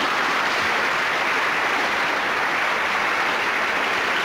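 Studio audience applauding at a steady level.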